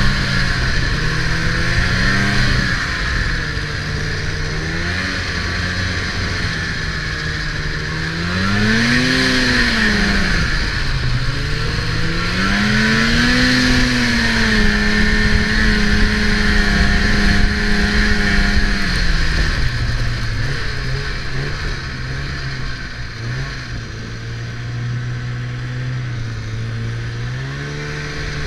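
Snowmobile engine running as the sled moves along a trail, its pitch rising and falling several times as the throttle is opened and eased off, with a steady hiss underneath.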